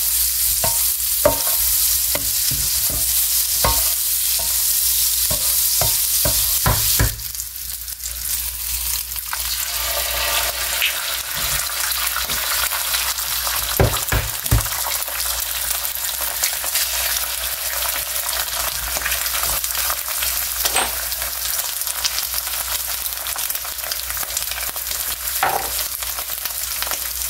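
Sausage patties and melted butter sizzling in an electric skillet, with a spatula scraping and tapping across the pan for the first several seconds. After a drop in level about a quarter of the way in, eggs fry in the butter with a steady sizzle, broken by a few sharp knocks around the middle.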